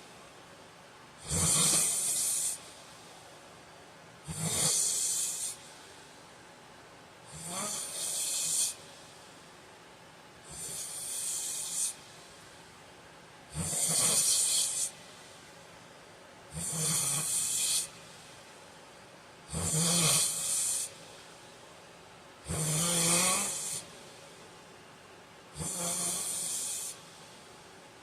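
A man snoring in his sleep: one loud snore about every three seconds, each lasting about a second, nine in a steady rhythm.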